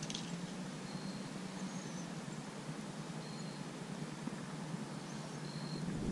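Quiet riverside ambience with short, thin, high bird chirps repeated about every two seconds, and a faint click right at the start. Near the end, wind starts buffeting the microphone with a low rumble.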